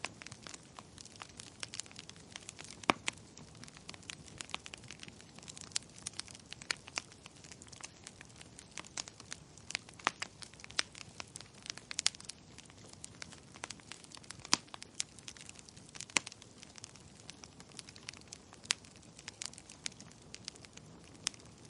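Wood fire crackling in a fireplace: a steady stream of irregular snaps and pops from the burning logs over a faint hiss, with a few sharper pops standing out.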